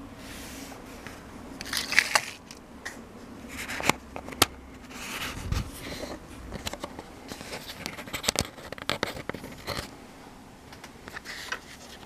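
Irregular sharp clicks and short scraping sounds of hard plastic as fingers work at the edge of a laptop's hard-drive bay cover.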